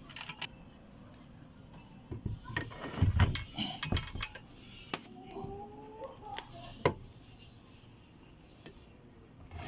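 Hand tools clinking and knocking against metal as they work on a stuck bicycle bottom bracket: scattered sharp clicks, a cluster of knocks about three seconds in, a faint rising squeak around the middle, and one sharp click near seven seconds.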